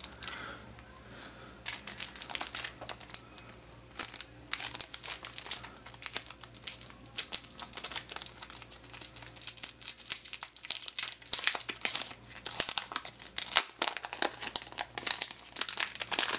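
Thin clear plastic sleeve crinkling as it is handled and pulled off a new tablet, in irregular crackles.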